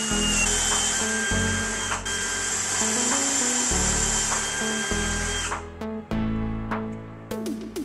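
Cordless drill running steadily at high speed as it bores a hole into a wooden cabinet panel. It stops suddenly about five and a half seconds in, and a few light clicks follow.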